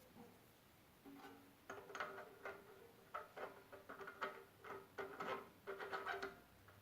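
Hand work on a metal part: a run of short, irregular scraping strokes, roughly two a second, each carrying a faint ring.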